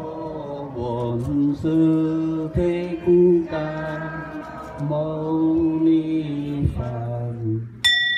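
Voices chanting a slow Buddhist chant in long held notes. Near the end a small ritual bell is struck once and rings on.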